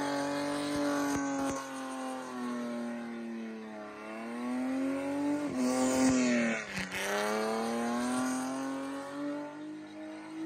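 BMW E36 325i's straight-six held at high revs during a donut, its note sagging and climbing again twice as the driver works the throttle while holding the brake to keep an open-diff car sliding. The rear tyres spin and smoke, with a burst of tyre squeal about six seconds in.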